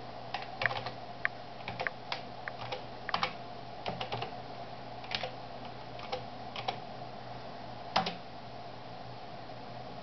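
Password being typed on a Dell computer keyboard: irregular keystrokes for about eight seconds, the last one the loudest. A steady low hum runs under them.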